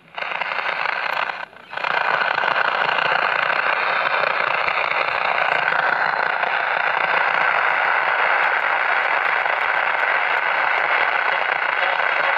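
Transistor radio switched on and giving out loud, steady hiss and static from its speaker, cutting out briefly about a second and a half in and then coming back.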